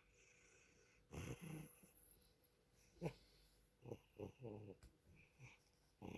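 Cat snoring in its sleep: a few separate wheezy breaths, one with a quick fluttering rattle, with pauses between them.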